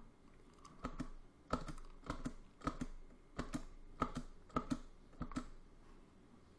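Computer keyboard keys pressed one at a time, about a dozen separate clicks, some in quick pairs, spaced roughly half a second apart, as the keys step from one chart to the next.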